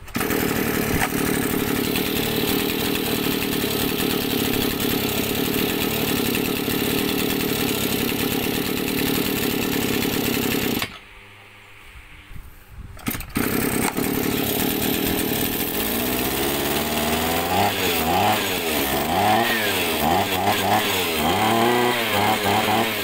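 Maruyama 26cc two-stroke brush-cutter engine (34 mm bore) running after an easy-start recoil pull. It stops about 11 seconds in, is pulled again and restarts about two seconds later. Near the end it is revved up and down over and over.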